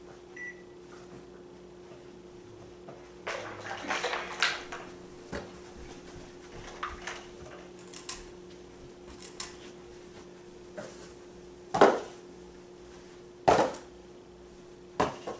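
Small cardboard boxes being handled on a carpeted floor: a cluster of rustling and knocking a few seconds in, then scattered light taps and three sharp knocks in the last few seconds. A steady low hum runs underneath.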